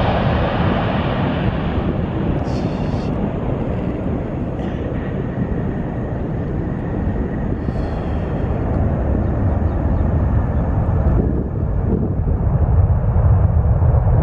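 Boeing 767 airliner's twin jet engines heard as a steady, loud rushing rumble as the plane touches down and rolls out along the runway. Near the end the low rumble grows louder.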